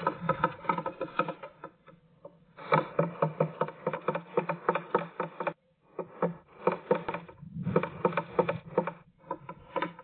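Great tit pecking at the wood inside a nest box: rapid runs of hard taps, many a second, broken by short pauses.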